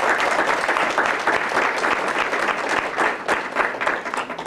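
Small audience applauding, a dense patter of many hands clapping that thins out near the end.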